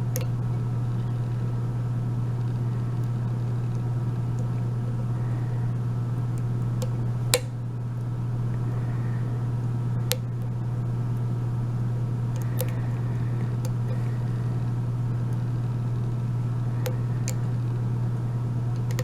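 A steady low hum throughout, with scattered faint clicks of a lock pick and tension wrench working the pins in a padlock's keyway, the sharpest click about seven seconds in.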